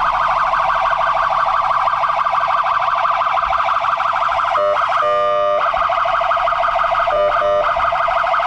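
Tow truck's electronic siren sounding a fast warble. About five seconds in it switches for about a second to a steady, lower tone, and briefly again about seven seconds in.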